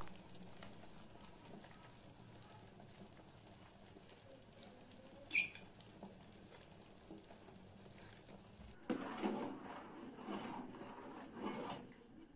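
Pot of stew simmering on a gas stove with faint bubbling and popping, and one short high squeak about five seconds in. From about nine seconds in, a metal ladle scrapes and knocks against the pot as the stew is stirred.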